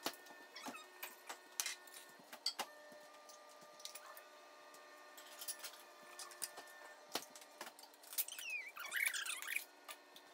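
People eating chicken wings by hand: chewing, wet lip smacks and light clicks of bones and fingers against plates. The loudest sound is a squeaky wet sucking and smacking, about nine seconds in, as sauce is licked off fingers. A faint steady hum runs underneath.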